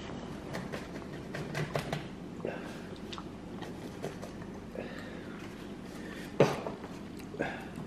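Rolling pizza cutter wheel cutting through a pizza on a countertop, with scattered sharp clicks and knocks of the blade. The loudest knock comes about six and a half seconds in, and a smaller one near the end.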